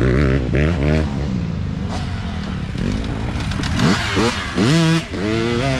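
Dirt bike engines revving through a dirt turn, their pitch rising and falling with the throttle. One bike heads away, then another passes close about four seconds in, revving hard, which is the loudest part.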